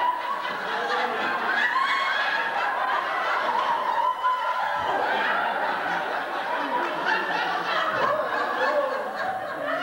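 Audience laughing, many people chuckling and laughing at once, kept up steadily.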